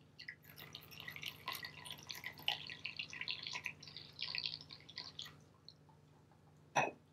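Tea poured from a teapot into a ceramic cup: a splashing trickle lasting about five seconds, then a single knock near the end.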